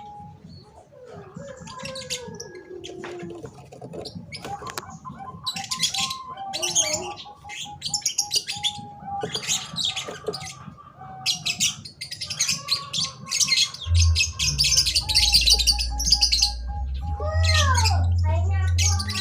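Small birds chirping busily and high, over lower held and arching calls of zebra doves (perkutut). A low steady hum comes in about two-thirds of the way through.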